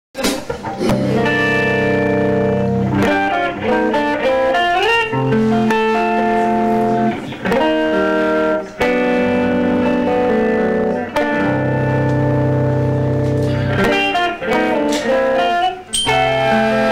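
A band playing instrumental music led by guitar over a bass line, with notes bent upward in pitch around four to five seconds in. No singing.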